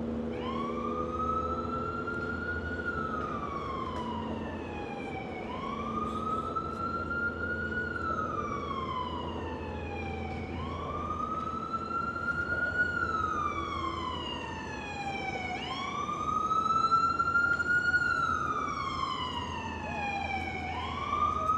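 Emergency vehicle siren on a slow wail, each rise and fall taking about five seconds, over the steady hum of city traffic. The siren grows louder in the last few seconds.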